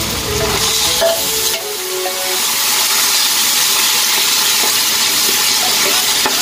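Raw pork cubes sizzling as they drop into hot oil in a wok and are stirred with a metal spoon; the sizzle grows louder and steadier about a second and a half in.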